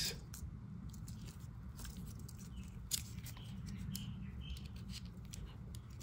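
Faint small clicks and rubbing as a small steel bit is worked out of a Victorinox Cybertool M's bit driver, over a low steady hum.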